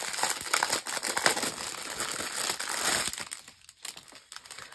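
Clear plastic packaging crinkling as it is handled, dense for about the first three seconds, then dying down.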